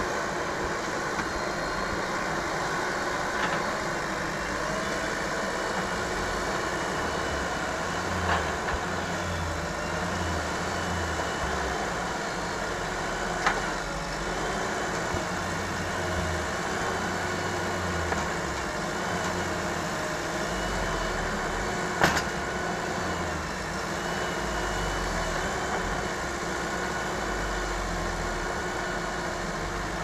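JCB 4DX backhoe loader's diesel engine running steadily and working up and down under load as the backhoe arm digs and swings, with a faint wavering whine. A few sharp knocks come from the bucket and arm, the loudest about 22 seconds in.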